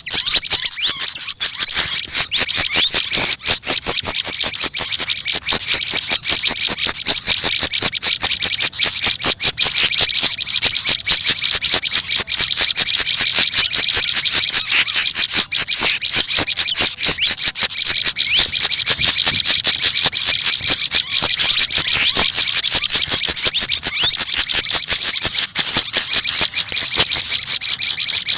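Pied fantail and prenjak lumut calling together: a dense, nonstop stream of rapid, short, high chirps and twitters, many notes a second.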